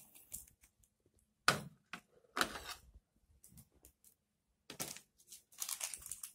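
Kitchen utensils being handled: a spoon tapping against a plastic blender jar and being set down in a sugar bowl on a plastic tray. It comes as a few separate light clicks and knocks, with a short run of them near the end.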